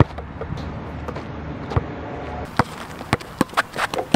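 Basketball bouncing on an outdoor asphalt court: single thuds at the start and nearly two seconds in, then a quicker, irregular run of thuds in the last second and a half. A low steady rumble sits under the first half.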